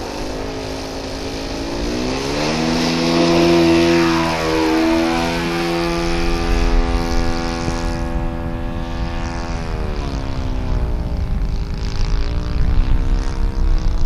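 OS 52 four-stroke glow engine on a radio-controlled model plane opening up to full throttle for takeoff. Its pitch rises over the first few seconds, is loudest a few seconds in, dips about four seconds in, falls again near eight seconds and then wavers as the plane flies.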